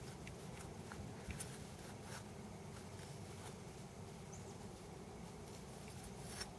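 Quiet outdoor background with a few faint, light clicks.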